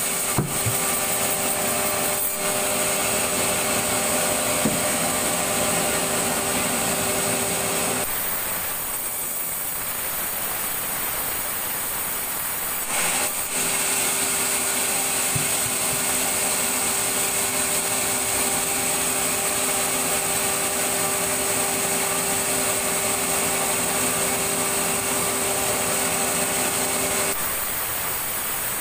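Sawmill saw running with a steady high whine as it cuts timber. The whine drops away about eight seconds in, comes back around thirteen seconds, and stops again near the end.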